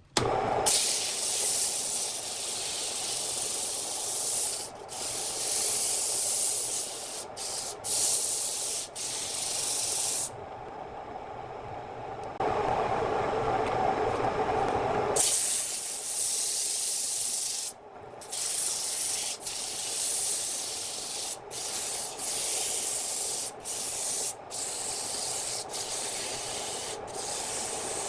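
Wood being worked on a spinning lathe: a steady scraping hiss of a tool or abrasive against the turning wood, broken by several short drop-outs. Around the middle the sound turns duller and lower for a few seconds.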